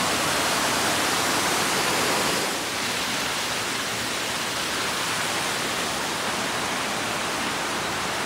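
Waterfall in the gorge below: a steady rush of falling water, a little softer from about two and a half seconds in.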